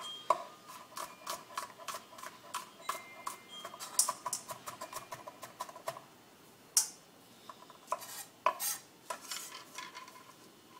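Kitchen utensils clinking and tapping: an irregular run of sharp clicks, some with a short metallic ring.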